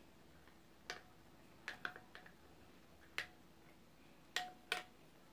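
A utensil clicking and knocking against a hard bowl while gelatin slime is stirred: about seven sharp, irregularly spaced clicks, some with a brief ring.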